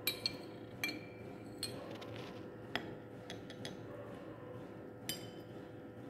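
Laboratory glassware clinking: a glass rod knocking against a glass flask and beaker, making about half a dozen sharp clinks spread through, several with a brief glassy ring.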